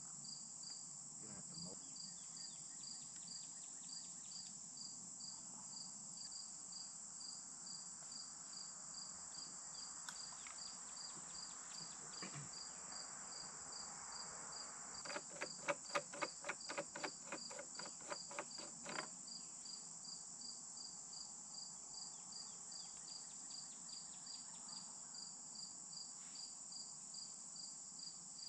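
Crickets and other insects chirping steadily: a continuous high drone with a regular pulsing chirp. About halfway through, a quick run of sharp clicks, about five a second, lasts some four seconds.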